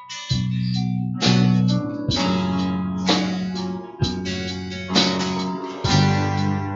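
Worship band playing instrumentally: guitar chords struck about once a second over held bass notes.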